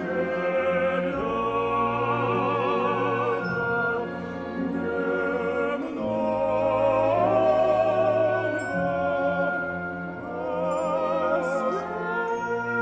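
Operatic male singing with a wide vibrato over a symphony orchestra playing sustained chords.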